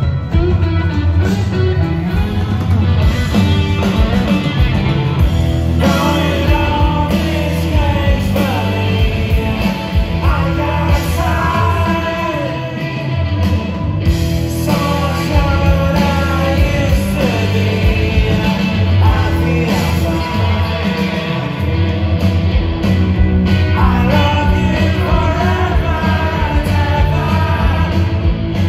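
Live rock band playing: a man singing lead over electric guitar and drums, with the vocal lines coming and going over a steady loud band.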